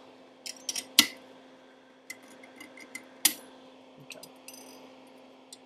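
Irregular sharp metallic clicks and clinks of soldering-station tips and small tools being handled while the soldering iron's tip is swapped. They are loudest about a second in and a little after three seconds, with a quick run of ringing clinks around four seconds.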